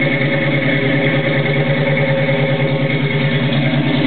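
1967 Ford Mustang's 289 V8 idling through Flowmaster 40 Series Delta Flow mufflers: a steady, loud, pulsing exhaust note.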